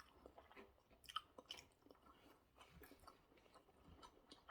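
Faint close-miked chewing of spaghetti bolognese: scattered wet mouth clicks and smacks, one louder smack about a second in.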